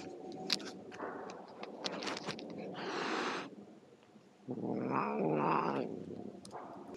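A cat growling, then hissing sharply about three seconds in, then letting out a low, drawn-out yowl: the warning sounds of a cat facing a rival it dislikes.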